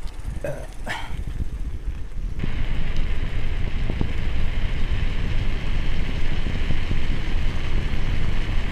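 Wind rumbling on the microphone of a camera riding on a moving bicycle. About half a second and a second in there are two short rising calls, which sound like a dog barking, and from about two and a half seconds a steady higher hiss joins the rumble.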